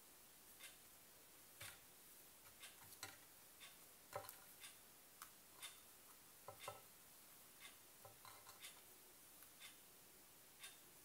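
Faint, irregular light clicks and taps, roughly one a second, as hands fold meat-filled blini on a glass cutting board; the sharpest tap comes about four seconds in.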